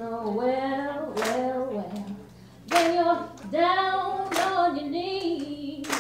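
Background song: a woman singing long, held notes over a clapped beat, one clap about every second and a half, with a brief break in the singing a little before the middle.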